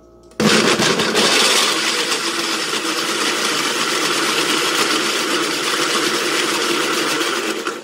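Countertop blender switched on about half a second in, its motor running loud and steady as it blends vanilla ice cream with crème de menthe and crème de cacao into a milkshake, then switched off right at the end.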